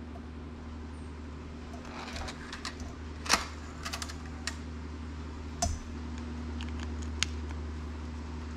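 Scattered clicks and taps from handling an audio cable and plugging it into the car radio, with the sharpest click about three seconds in, over a steady low hum.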